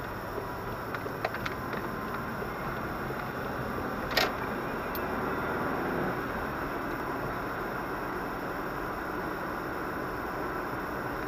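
Steady road and engine noise of a moving car heard from inside the cabin, with a few small clicks about a second in and one sharp knock about four seconds in.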